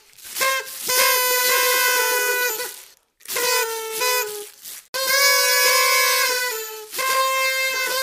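Party trumpets blown in a string of blasts: a couple of short toots, then held notes of one to two seconds each with short breaks between, a few of them bending down in pitch.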